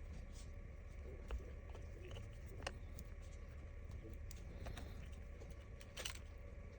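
A few faint, sharp clicks over a low steady hum, the clearest about a second in, near three seconds and about six seconds in. These are small parts and tools being handled on an iPhone 15 Pro as the display and front sensor flex cables are connected.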